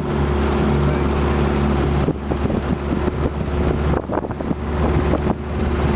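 Motorboat engine running steadily under way, with wind buffeting the microphone; the wind gusts hardest through the middle of the stretch.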